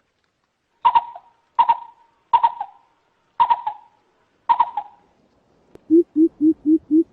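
Coucal calling: five short, sharp call notes about a second apart, then from about six seconds in a quick run of deep, low hoots, about four a second.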